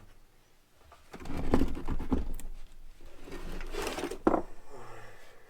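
Hand tools being handled: irregular rustling and clatter of Allen wrenches being tried on the pressure washer pump's bolts, with one sharper knock about four seconds in.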